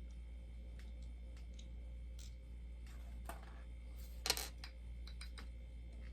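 Small clicks and taps of a bobblehead being handled and set onto its display base, with one louder knock about four seconds in, over a low steady hum.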